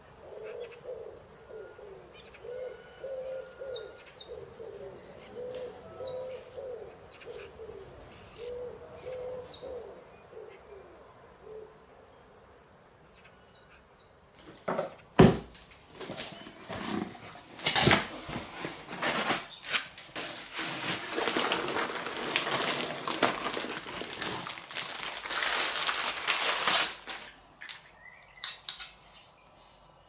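A cardboard shipping box is set down with a sharp knock about halfway through, then opened: crackling, rustling tape, cardboard and packing material for about twelve seconds, stopping shortly before the end. Faint chirps and wavering calls come before it.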